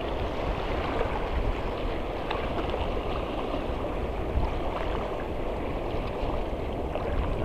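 Sea water washing and lapping in the rocky shallows, a steady wash with no single loud event.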